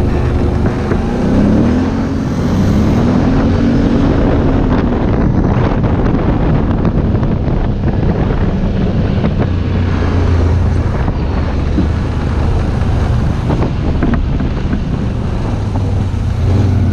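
Quad bike (ATV) engine running under way, its pitch rising and falling twice in the first few seconds, then running steadier, with wind buffeting the microphone.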